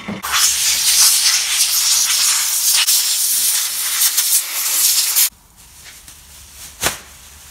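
Compressed-air blow gun blasting air over a freshly washed aluminium engine part: a loud, steady hiss that cuts off abruptly about five seconds in. A single sharp knock follows near the end.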